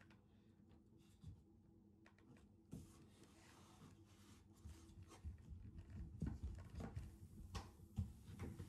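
Faint rubbing and handling of painted wooden door-casing trim as it is pressed and adjusted into place against the wall by hand, with a few light knocks in the second half.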